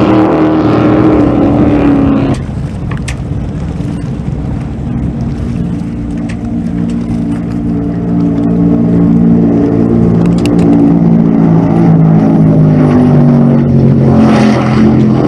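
Offshore powerboats passing at full throttle: a loud engine drone whose pitch sinks as each boat goes by. The sound changes abruptly about two seconds in, then builds as another boat comes past and falls in pitch, with a fresh change near the end.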